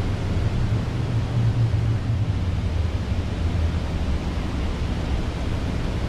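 Heavy ocean surf and wind: a steady, deep rumble of big waves breaking, with no tune or speech over it.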